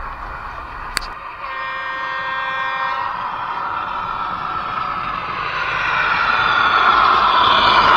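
A click, then a model diesel railcar's horn giving one steady toot about a second and a half long, followed by the running noise of the model train on its track, growing louder as it approaches.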